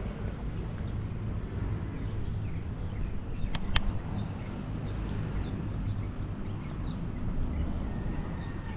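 Steady low outdoor rumble, with two sharp clicks about three and a half seconds in.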